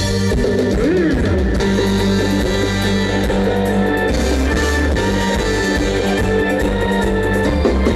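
Loud band music for a stage show, with electric guitar and bass guitar: a held chord gives way to a busier band part at the very start, with a bent note about a second in.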